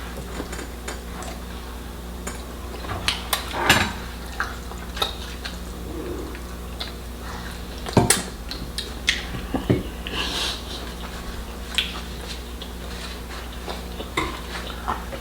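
Plates and cutlery clinking and knocking during a meal: scattered sharp clicks, the loudest about 4 and 8 seconds in, over a steady low hum.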